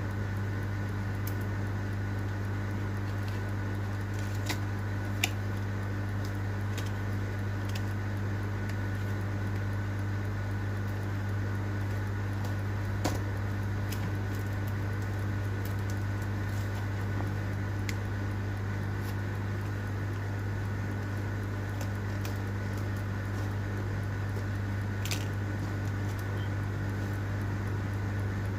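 Steady low electrical hum with a fainter high whine, and a few faint sharp clicks and taps now and then.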